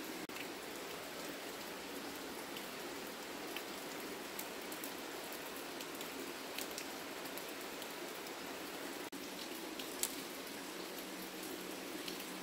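Steady rain falling, with scattered louder drops and one sharp tick about ten seconds in.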